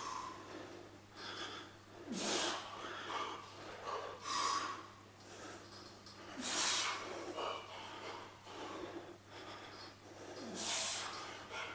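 A weightlifter's hard, forceful breaths through a set of seated chest presses: four stronger exhalations about two seconds apart, with fainter breaths between.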